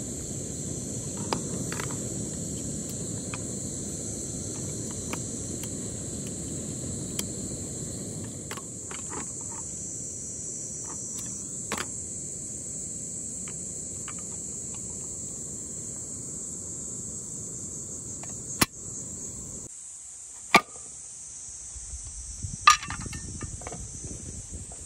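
Single-burner gas canister stove running with a steady low rush under a hot sandwich maker, over a constant high-pitched trill of insects. The burner cuts off about twenty seconds in, and a few sharp metallic clacks follow as the sandwich press is handled.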